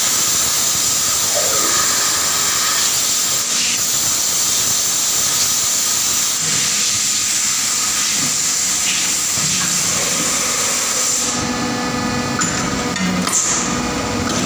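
A 120-ton die casting machine hissing steadily and loudly. About eleven seconds in the hiss eases, and a steady machine hum with a couple of short knocks comes through.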